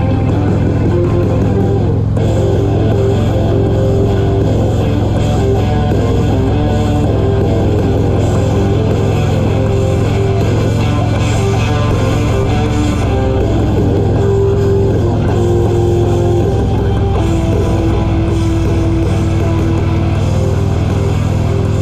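Rock music with guitar playing through a motorcycle's stereo speakers while riding, over a steady low drone.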